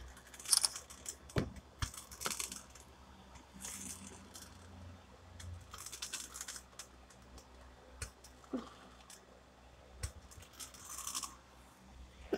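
Faint, irregular rustling and crinkling in short bursts, with a few scattered clicks and soft knocks.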